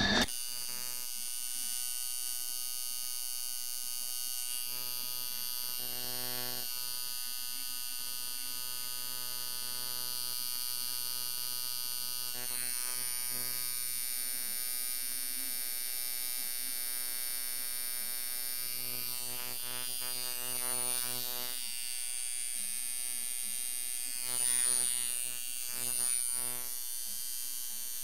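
Hand-made dual-coil tattoo machine set up as a long-stroke liner, running at 5.5 volts with a steady electric buzz of about 120 cycles per second. The buzz swells briefly a few times near the end.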